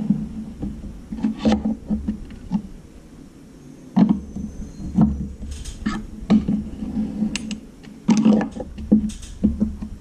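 Irregular metal clinks and knocks as screwdrivers used as winding bars are seated in, and shift against, the holes of a garage door torsion spring's winding cone while the spring's tension is let off in steps, a few strikes ringing brightly.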